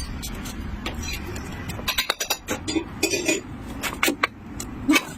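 Metal tools and parts clinking and knocking in an irregular string of sharp taps, over a steady low background hum, during clutch replacement work on a car.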